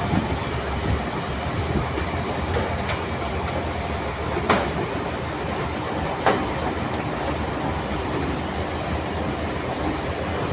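Hydraulic excavators working earth: a steady diesel engine rumble, with two sharp knocks near the middle, about two seconds apart.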